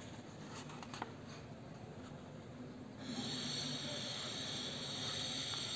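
Quiet handling of a paperback textbook over an exercise book, with a faint tap or two about a second in; about three seconds in, a steady high hiss starts and keeps going.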